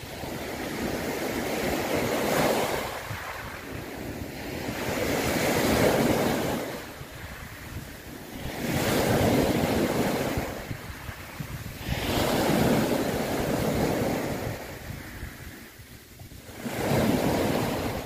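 Sea waves washing in repeated surges of noise, each swelling and falling away over a few seconds, about five in all.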